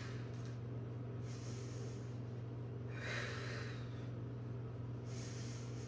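A woman's forceful, audible breaths in the paced breathing of the Pilates Hundred: airy rushes of breath about every two seconds, with a fainter one between the louder ones. A steady low hum runs underneath.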